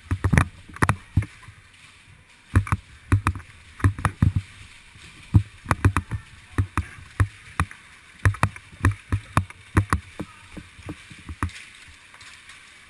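Irregular heavy thumps and knocks, about two to three a second in uneven runs, from footsteps and gear jostling a body-worn GoPro as the player moves.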